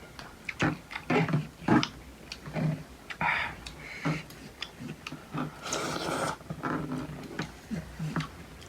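Close-up eating sounds: irregular chewing, smacking and wet mouth noises as food is eaten.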